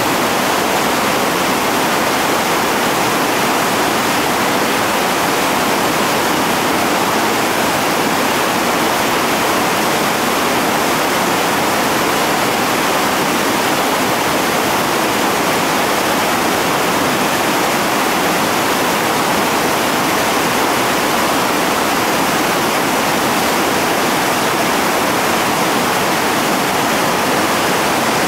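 Loud, steady rush of whitewater rapids: river water pouring over and around boulders in heavy white water.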